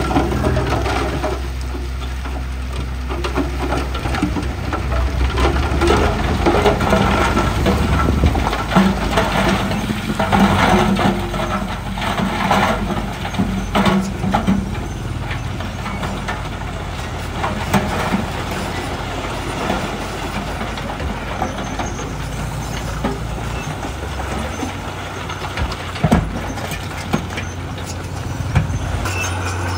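Heavy diesel earthmoving machinery (bulldozer and dump trucks) running under load, its low engine note shifting a few times, with irregular knocks and clatter of rock being pushed and one sharp knock late on.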